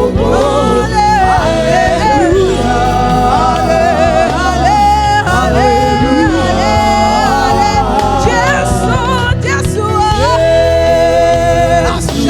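Gospel praise-and-worship music: a band with a steady bass, and singers holding long, wavering sung notes.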